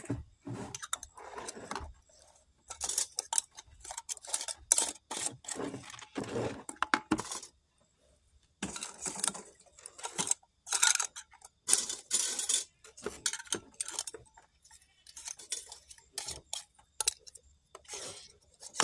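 Metal canning lids and screw bands clinking and scraping as they are put on and screwed down onto glass mason jars of corn, in an irregular run of short clinks with a brief pause about eight seconds in.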